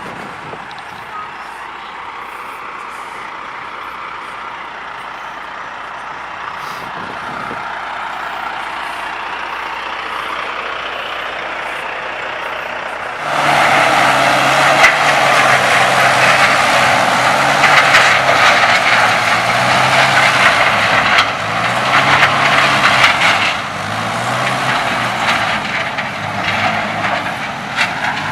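Heavy truck engine running, the noise growing slowly at first. About halfway through it turns suddenly much louder, with shifting engine tones under a strong rushing noise.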